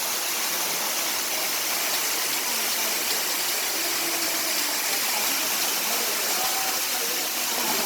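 Waterfall crashing down steadily, a dense unbroken rush of falling water.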